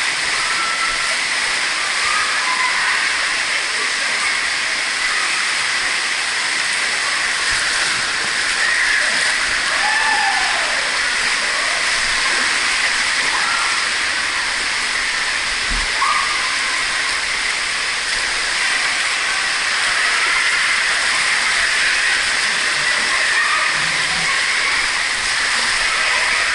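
Water slide's flowing water, a loud steady rushing, with a few faint distant voices in the middle.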